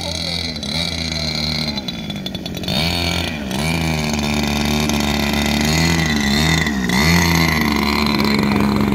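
The 30cc Moki engine of a 2 m RC plane running at low throttle while the plane taxis on grass. Its revs dip and pick back up several times, and it grows louder as the plane comes close.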